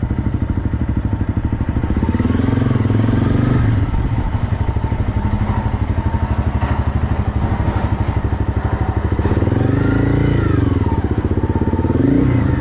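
Honda CRF250L's single-cylinder four-stroke engine running while the bike is ridden, its pitch rising and falling with speed and gear changes, including a clear rev rise and fall about ten seconds in.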